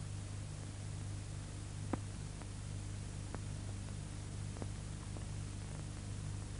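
Steady low hum and hiss of an old film soundtrack with no narration, broken by scattered faint clicks and one sharper pop about two seconds in.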